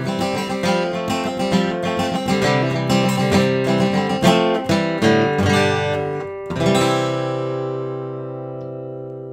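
Background music: acoustic guitar strummed in a steady rhythm, ending about six and a half seconds in on a held chord that slowly fades away.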